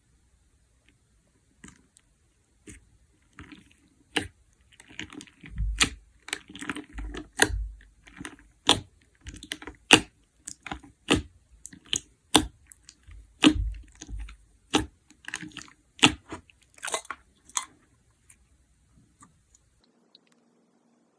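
Slime being pressed and squeezed by hand, giving irregular sharp popping clicks from trapped air and soft squishing. The sounds start sparsely, come thick and fast through the middle, and thin out again near the end.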